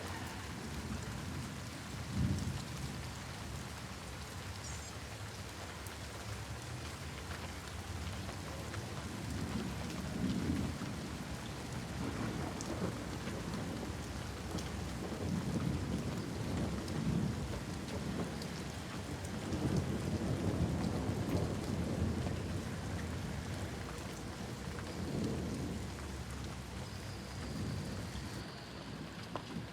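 Steady rain falling during a thunderstorm, with low thunder rumbling several times, a sharp crack about two seconds in and longer rolling rumbles through the middle.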